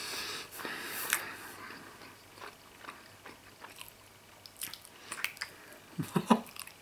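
Chewing a mouthful of Emmentaler cheese with the mouth closed: soft, wet mouth clicks scattered through, louder around six seconds in.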